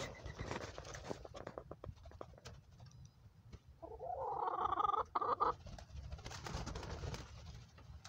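Poultry in a coop: scattered scratching and clicking, and about four seconds in one drawn-out, wavering bird call lasting about a second and a half.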